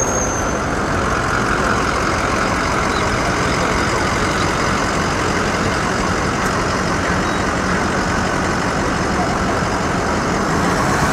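Steady street traffic noise with a motor vehicle engine running close by.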